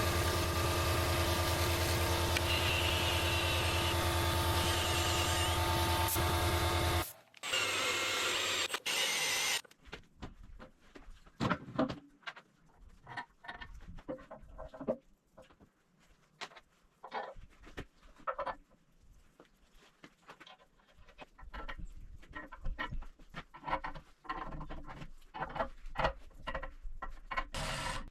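A handheld power tool runs steadily for about seven seconds, stops, and runs again for about two seconds, followed by scattered clicks and knocks of tools and metal parts being handled.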